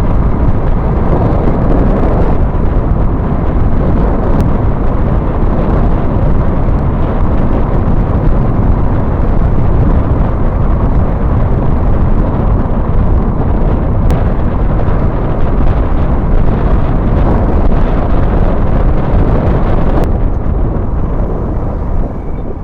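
Heavy wind buffeting on an action camera's microphone on a motorcycle moving at speed: a loud, steady roar that covers the bike's engine and road noise.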